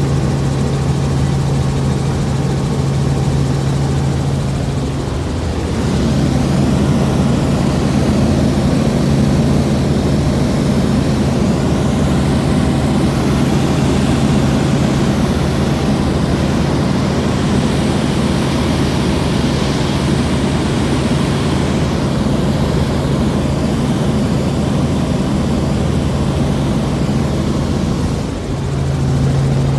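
Helicopter in flight: a steady drone of engine and rotors with a constant low hum. The hum breaks briefly about five seconds in and again near the end, and the drone is a little louder between those points.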